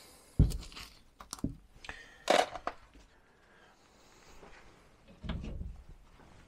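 Handling noise from dismantling a Stromberg 175CD carburettor on a workbench: scattered clicks and knocks of small metal parts and tools, with a sharp knock about half a second in and a louder clatter about two seconds in.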